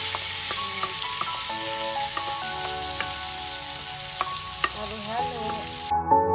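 Halved baby potatoes and garlic sizzling in butter and olive oil in a nonstick frying pan, stirred with a wooden spatula that clicks against the pan a few times. The sizzle cuts off abruptly near the end, leaving soft background music.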